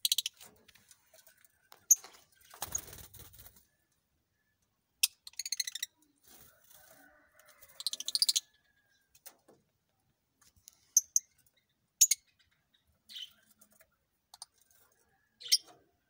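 Fischer's lovebirds calling: short, sharp, high-pitched chirps and squeaks at irregular intervals, with two quick chattering runs about five and eight seconds in. A brief rustle comes about three seconds in.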